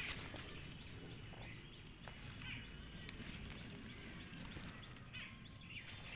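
Faint outdoor background with a few short bird chirps, mixed with light rustling and clicks as leaves and a tape measure are handled close by.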